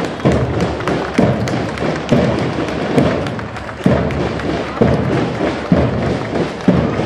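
Marching band drums keeping a steady beat: a bass drum thump about once a second, with lighter drum strokes in between.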